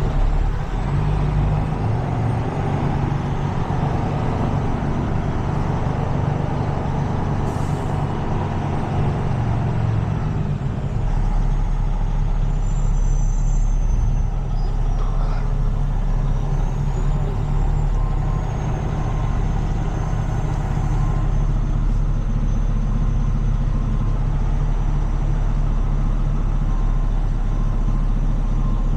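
Heavy tow truck's diesel engine running steadily with a deep low hum while backing and maneuvering. The low rumble grows stronger about eleven seconds in. A single brief sharp sound comes about a third of the way through.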